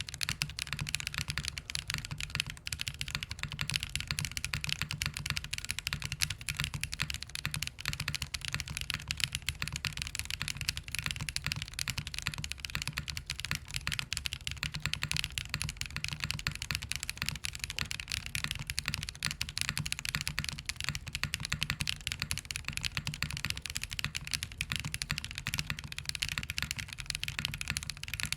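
Steady, fast typing on a Jris75 gasket-mounted 75% custom mechanical keyboard fitted with Voyager tactile switches, lubed over the factory lube, and GMK Minimal doubleshot ABS keycaps. The keystrokes come thick and unbroken, with a deep clack under a crisper top click.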